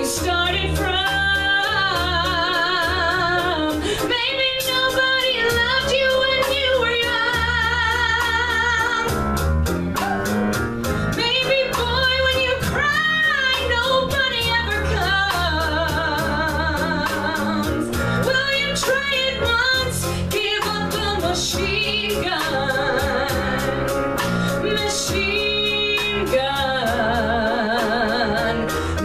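A woman singing live with a band, holding long notes with a wide vibrato over steady drums and cymbals and bass guitar.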